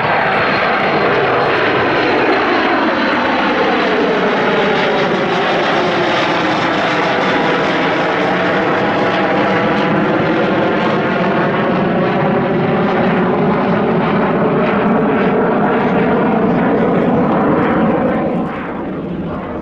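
Kawasaki C-1 transport's twin JT8D turbofan engines at takeoff climb power as it passes overhead: a loud, steady jet roar with a slow sweeping, phasing tone. The noise drops off suddenly near the end.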